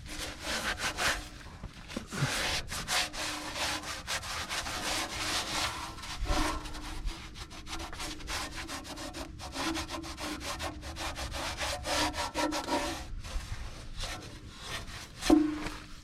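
Rough rubbing or scraping strokes in quick, irregular succession, with one louder short knock about fifteen seconds in.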